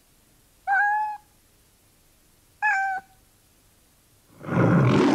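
A domestic cat meowing twice, two short meows about two seconds apart, followed about four and a half seconds in by a loud, rough burst of noise.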